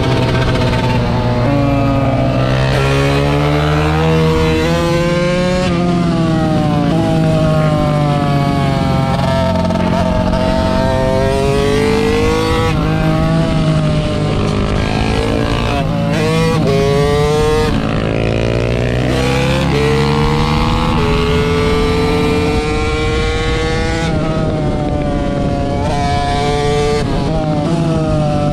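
Small-displacement motorcycle engine being ridden, its revs rising and falling again and again through the gears and throttle.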